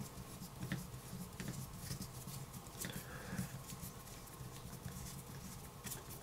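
Faint, scattered light clicks and small scrapes of a small bolt and hand tool being worked into an RC car's differential cup.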